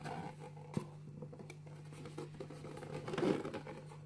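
Hands handling a cardboard model kit box and its plastic-bagged parts runners: a few light taps and clicks, then a louder rustle about three seconds in, over a steady low hum.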